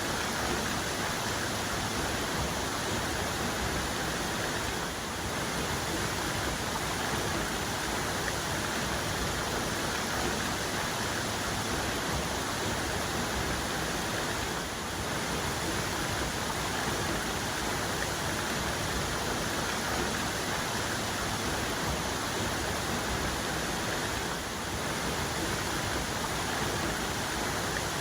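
Waterfall cascade rushing steadily, a dense even roar of falling water.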